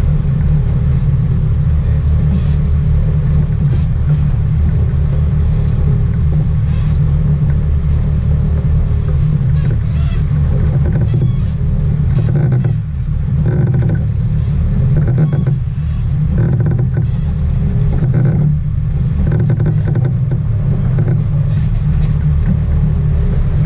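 Sport-fishing boat's engine running steadily at trolling speed, a low drone with a steady hiss over it.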